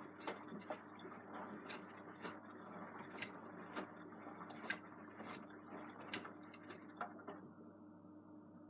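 Beko WM74165W washing machine running a wash cycle: a steady motor hum with sharp, irregular clicks and knocks from the turning drum. About 7 seconds in, the clicks and hiss stop, leaving only the hum.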